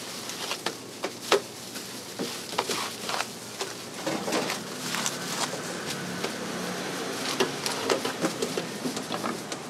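Thin, papery spring roll wrappers and disposable plastic gloves crinkling and rustling as the wrappers are peeled apart and stacked by hand. The sound is an irregular run of small crackles and ticks, with one sharper crackle about a second in.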